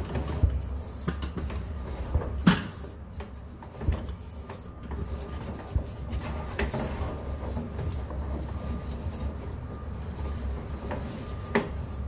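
Sewer inspection camera's push cable being fed along a cast iron drain line: a steady low rumble with scattered knocks and clicks, the loudest about half a second and two and a half seconds in.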